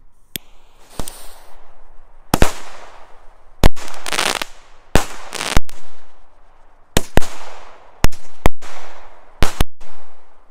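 Consumer multi-shot firework cake firing, starting about two seconds in: a run of sharp reports, roughly one or two a second, each followed by a fading hiss and crackle as the shots launch and break.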